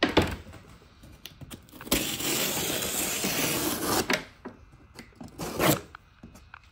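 A long cardboard box being handled on a wooden pallet: a knock at the start, then about two seconds of steady scraping rush in the middle, and a shorter scrape near the end.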